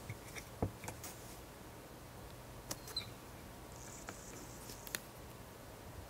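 A few short, sharp bird chip notes and ticks scattered over a quiet background, including one quick high descending chirp about three seconds in.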